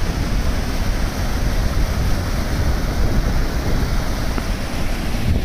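Steady rushing noise of a mountain stream, with wind buffeting the microphone.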